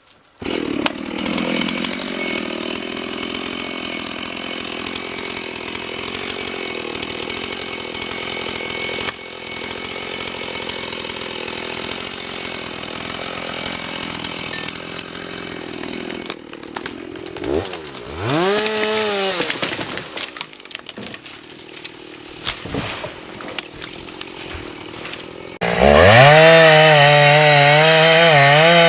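Chainsaw cutting through wood, its engine running steadily under load. It is revved up and back down once about two-thirds of the way through. Near the end a chainsaw suddenly runs loud at high revs, its pitch wavering.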